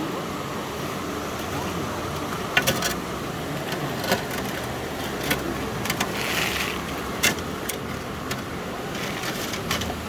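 Stream water running steadily, with sharp clicks and taps scattered through and a brief hissy swell about six seconds in.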